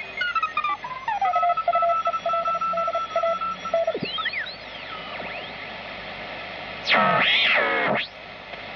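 Volna-K shortwave receiver being tuned across signals around 7 MHz. Whistle tones slide down in pitch as the dial moves, and a tone keys on and off for a few seconds over steady static hiss. Thin whistles swoop up and down, then a loud warbling signal comes through for about a second near the end.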